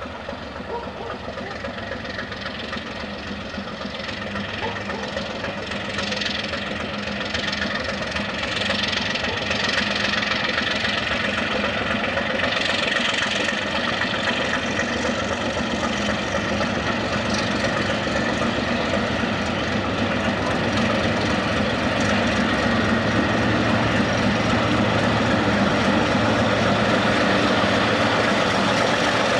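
Diesel engine of a Baldwin switcher locomotive running as the locomotive approaches, growing steadily louder over the first half and then holding steady.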